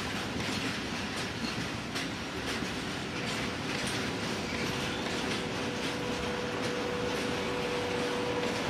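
Freight train of coal hopper wagons rolling past, wheels clicking over the rail joints under a steady rumble. A thin steady tone comes in about halfway through and grows stronger.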